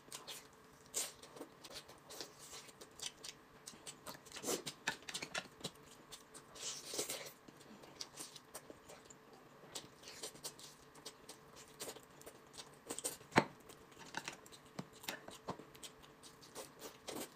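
Close-up eating sounds: chewing and biting meat off chicken drumsticks, with soft irregular wet clicks and crackles of mouth and lips. One sharper click about thirteen seconds in.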